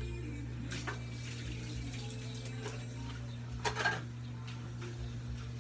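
Water sloshing and splashing in plastic basins as clothes are hand-washed, with a plastic dipper knocking against the tubs. The louder splashes come about a second in and again near four seconds in, over a steady low hum.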